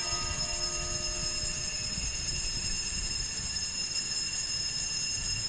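Altar bells rung continuously at the elevation of the consecrated host, a shimmering high-pitched ringing that drops away sharply near the end. A lower ringing tone joins at the start and fades within about two seconds.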